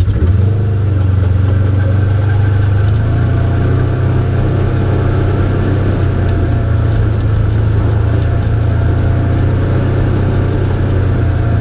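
Engine of a side-by-side utility vehicle running with a steady low drone as it rolls slowly along, its note stepping up slightly about three seconds in.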